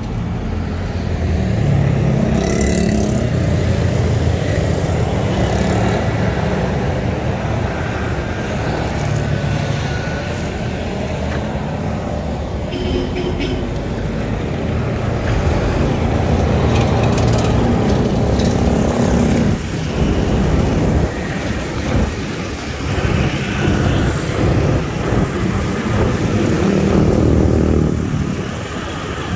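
Street traffic heard from a moving bicycle: cars and motorcycles running nearby, over a loud, uneven low rumble.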